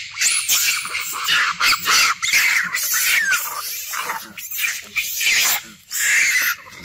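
Monkeys calling in a rapid run of short, high-pitched squeals, some sliding up and down in pitch.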